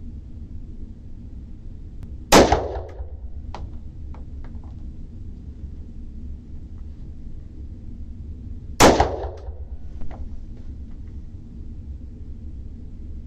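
Two gunshots about six seconds apart, each with a short echo and a few fainter clicks and knocks after it, over a steady low hum.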